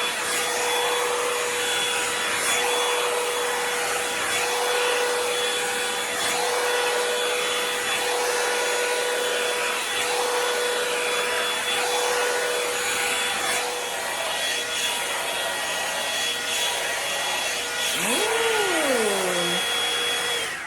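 Revlon hair dryer and styler, a hot-air brush, blowing steadily as it dries 4C natural hair, a steady whine over the rush of air, switched off at the end. A brief voice that rises and falls in pitch comes near the end.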